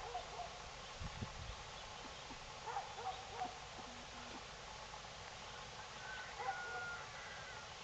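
Juvenile hawk calling in three short bouts of thin, wavering cries, a young bird's attempt at the adult hawk scream that sounds sad. The loudest bout comes about six and a half seconds in.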